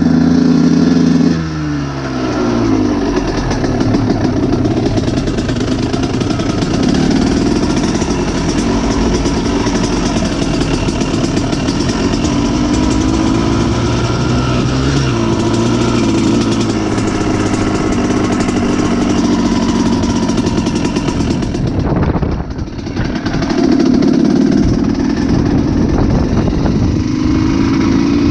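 Kawasaki KX125's single-cylinder two-stroke engine under a rider's throttle. It revs high, drops about a second and a half in, and then runs at low, varying revs. A little past the middle it briefly falls off almost to nothing, then revs up again.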